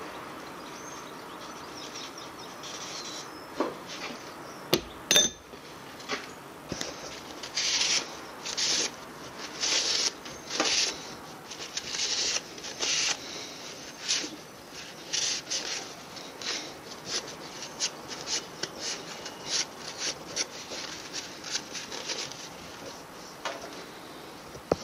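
Rag rubbing and wiping the bare metal of a stripped engine block in many short repeated strokes, with a couple of sharp metal clicks about five seconds in.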